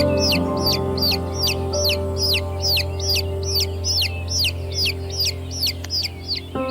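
Small chicks peeping: a rapid, even series of short high descending peeps, about four a second. Soft sustained background music plays underneath.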